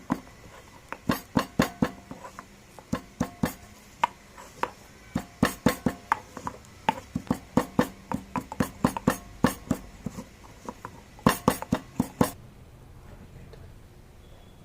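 Pestle pounding in a small mortar (kutani), crushing tulsi leaves, cardamom, cloves and jaggery: sharp strikes in irregular runs of a few a second, stopping near the end.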